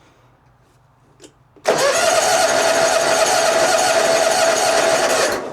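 Electric starter cranking the mower's 23 hp twin-cylinder Kawasaki engine steadily for about three and a half seconds, starting about a second and a half in and stopping without the engine catching. The engine has no spark, so it turns over on the jump pack but never fires.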